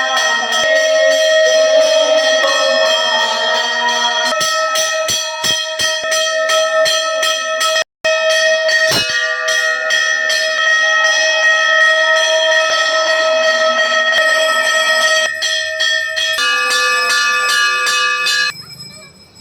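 Hindu temple bells rung by hand, struck over and over in quick succession so that their tones ring on together at several pitches. The ringing breaks off for an instant about eight seconds in and stops abruptly near the end.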